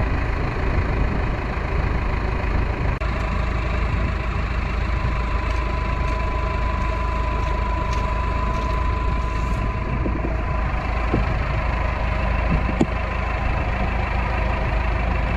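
Tractor engine running steadily at a low idle, with a thin steady whine through the middle and a couple of light clicks near the end.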